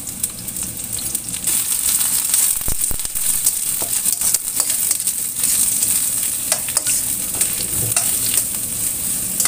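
Sliced shallots, garlic, kaffir lime leaves and lemongrass sizzling in hot oil in a stainless steel wok, stirred with a metal spatula that clicks and scrapes against the pan: the aromatics being sautéed until fragrant. The frying hiss grows louder about a second and a half in.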